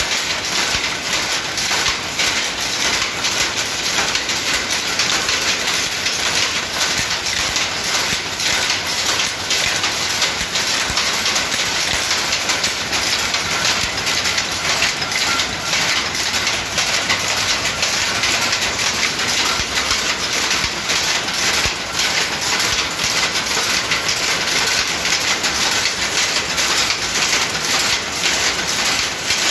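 Power loom weaving silk brocade cloth: a fast, steady clatter of the running machine that never lets up.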